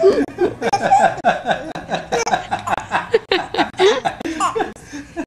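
Baby girl laughing in a quick run of short giggles while being tickled.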